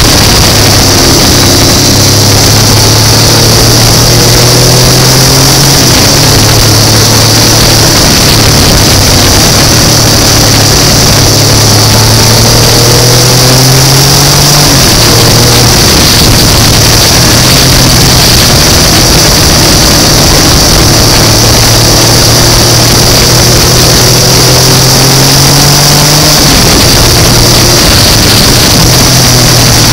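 Motorcycle engine running on the move. Its pitch climbs steadily and then drops back at each gear change, three times, under a constant loud hiss of wind and wet road.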